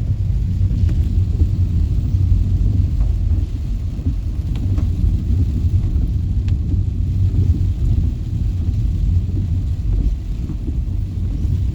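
Rainstorm: a steady low rumble with a few scattered ticks of drops.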